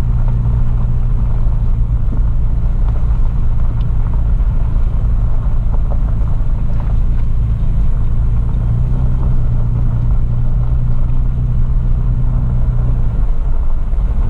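Toyota FJ Cruiser's 4.0 V6 and tyres heard from inside the cabin while driving on a dirt forest track: a steady low engine drone with road rumble and a few small clicks and rattles. The drone's pitch shifts a little about nine seconds in and eases near the end.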